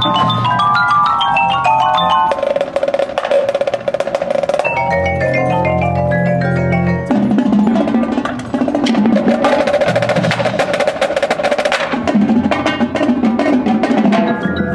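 Percussion ensemble playing: marimbas run fast mallet passages over low held notes, with dense sharp drum strokes, busiest a little past the middle.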